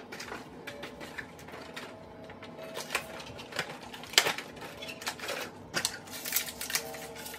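Clicking and crinkling of a clear plastic packaging tray of pink ball ornaments being opened and handled, the baubles knocking against the plastic, with one sharper click about four seconds in.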